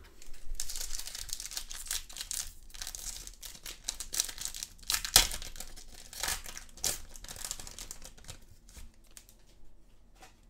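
Foil trading-card pack being torn open and its wrapper crinkling as the cards are slid out, with one loud crackle about halfway through. The sound dies away near the end.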